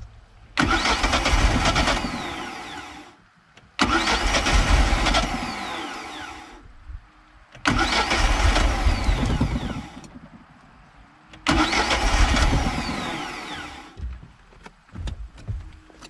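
MerCruiser 3.0-litre four-cylinder marine engine cranked on its starter four times, each attempt about three seconds and fading before it stops. It does not settle into a run on its newly fitted carburetor.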